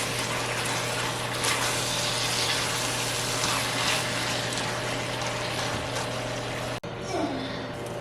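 Tap water running steadily in a continuous rush over a low steady hum, breaking off abruptly about seven seconds in.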